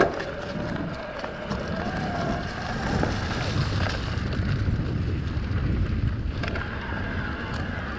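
Electric mountain bike ridden over a dirt and leaf-litter trail: tyres rolling and rattling over the ground with wind buffeting the microphone. A faint wavering whine, strongest in the first half, comes from the bike's Shimano Steps E8000 mid-drive motor under assist.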